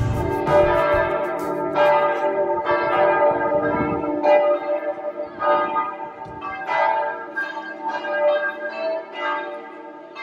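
Church bells ringing: several bells of different pitches struck one after another in an uneven peal, roughly one strike a second, each note ringing on under the next.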